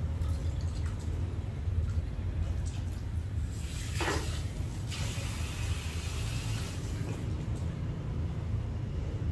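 Water running or spraying for about three seconds, starting about three and a half seconds in, over a steady low hum.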